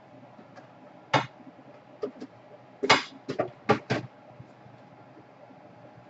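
Small hard objects being handled, clicking and clinking: about seven sharp knocks between one and four seconds in, then quiet handling.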